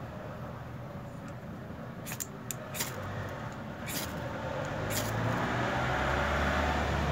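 Several quick rasping scrapes of a scraper struck down a ferrocerium rod, showering sparks onto bamboo-shaving tinder, which catches. A low rumble swells in the background in the second half.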